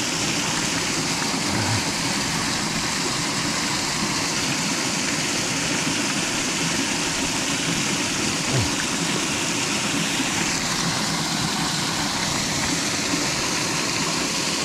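Steady rushing of a mountain stream's water flowing over rocks.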